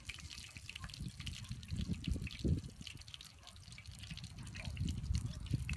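Fish frying in a pan of hot oil, a steady scatter of crackles and pops from the spitting oil. Irregular low rumbles underneath, loudest about two and a half seconds in.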